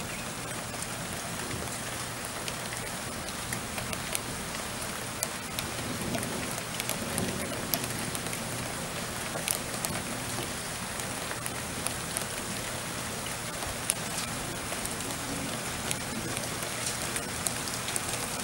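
Steady rain falling, a constant hiss with many small drops ticking sharply on a hard surface.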